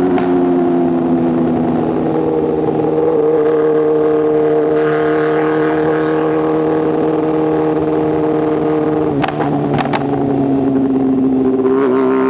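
2024 BMW S1000RR's inline-four engine through a titanium exhaust, running at a fairly steady engine speed while riding. It rises slightly about three seconds in; about nine seconds in the note dips briefly with a couple of sharp pops and settles lower.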